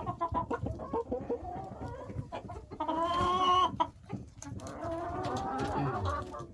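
Domestic hens clucking, with a held call about three seconds in and a longer wavering call near the end, over scattered small clicks.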